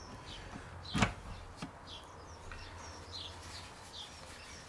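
One sharp knock about a second in, followed by a lighter click, as parts of the BE4 gearbox's gear assembly are worked loose. A bird chirps repeatedly in the background.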